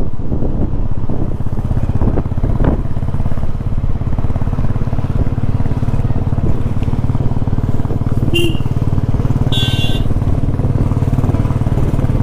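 Motorcycle engine running steadily under way, with two short high-pitched tones about eight and ten seconds in.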